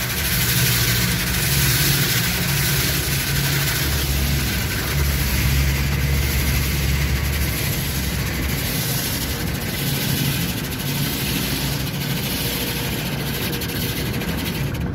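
Car wash water jets and foam spraying over a car's windshield and body, heard from inside the cabin as a steady hiss over a low, steady hum.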